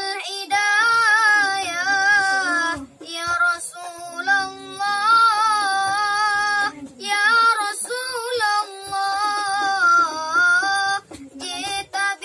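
A child's voice singing a sholawat (devotional Arabic song praising the Prophet) unaccompanied, in long phrases with ornamented, wavering pitch, pausing briefly for breath about every four seconds.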